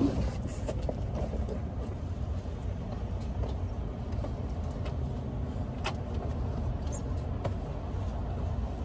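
Parking-lot background noise: a steady low rumble of passing and idling cars, with a sharp click right at the start and a couple of faint clicks about six and seven and a half seconds in.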